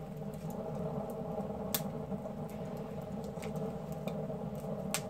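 A small sawdust-and-wax fire starter burning after being lit, giving a few sharp crackles, clearest about two seconds in and near the end, over a steady low hum.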